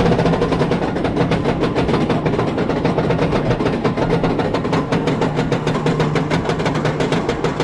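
Cobra's Curse spinning roller coaster car running along its track, heard from on board: a dense, fast, steady rattle over a low hum.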